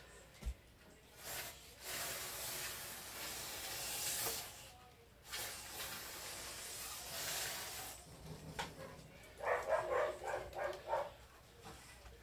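Aerosol contact cleaner sprayed onto a keyboard's key contacts in two long hissing bursts of about three seconds each, followed near the end by a quick run of short rasping sounds.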